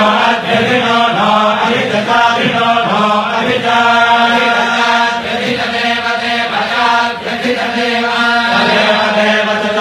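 Vedic chanting: Sanskrit verses recited in a continuous, steady stream on a narrow range of pitches.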